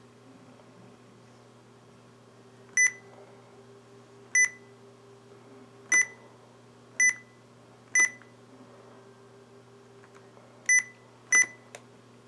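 IBM ThinkPad 600E's built-in speaker giving short, high, identical beeps, seven in all at uneven intervals, as options are picked in its Easy-Setup startup-sequence menu. A steady low hum runs underneath.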